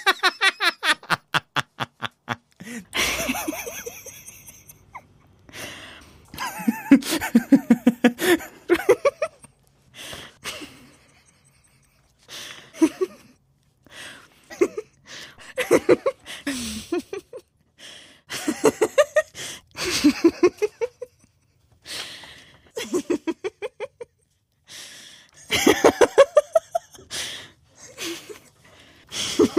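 Human laughter in repeated bursts, each a quick run of ha-ha pulses, with short pauses between bursts.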